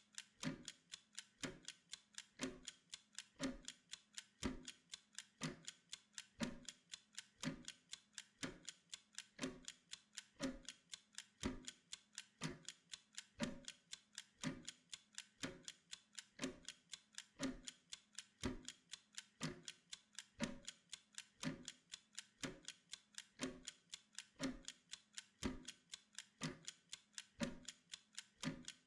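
Wind-up kitchen pomodoro timer ticking steadily, a rapid, even run of light mechanical clicks while it counts down.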